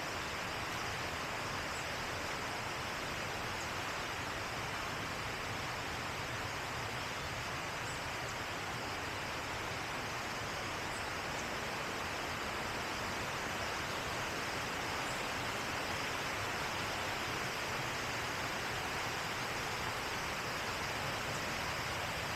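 River water rushing in a steady, unbroken hiss.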